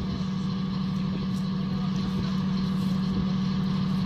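Engine of an M113-type tracked armoured mortar carrier running steadily with an even, constant hum.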